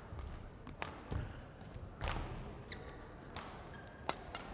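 Badminton singles rally: sharp cracks of racket strings striking the shuttlecock, four hits roughly a second apart, over the low hum of an indoor hall.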